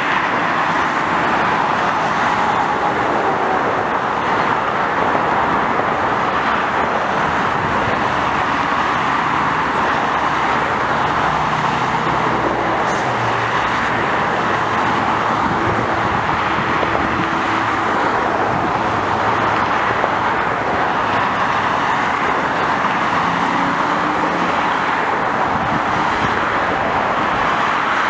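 Dense expressway traffic: a steady, even noise of many cars and trucks passing on a multi-lane highway, tyres and engines blending together.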